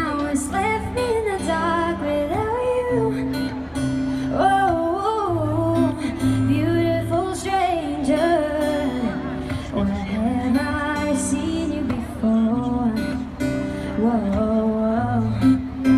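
Live singer performing a song over a strummed acoustic guitar, heard through a concert sound system.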